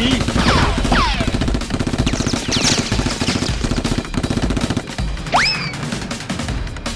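Rapid automatic gunfire in dense volleys that thin out after about five seconds, with a few whistling pitch glides and music underneath.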